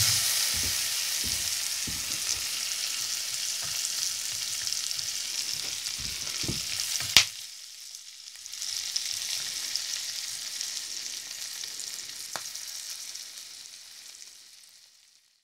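Sausages sizzling and spitting in a stainless steel frying pan, with a few low knocks and one sharp clack about seven seconds in as a wooden spatula turns them. The sizzle drops for a moment, then picks up again and fades out near the end.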